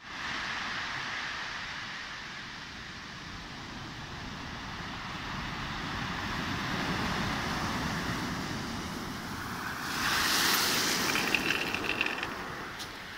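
Rough sea surf breaking on a shingle beach and against a rock groyne. About ten seconds in, a big freak wave surges up the pebbles with a louder rush of foaming water.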